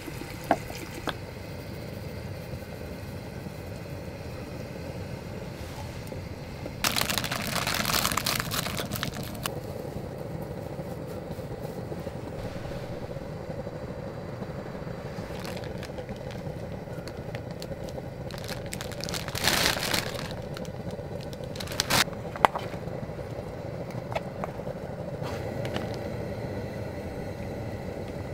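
Ingredients being handled and dropped into a hot pot: rustling and crinkling of food packaging in two loud bursts, about seven and nineteen seconds in, and a few sharp clicks, over a steady low background noise.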